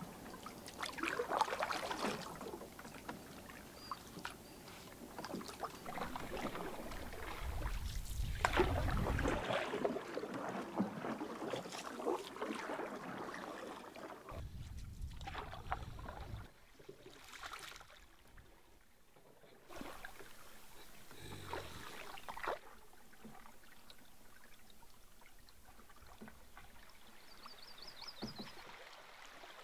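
Canoe paddle strokes and splashing, dripping water as a canoe is paddled along a creek; the background changes abruptly several times.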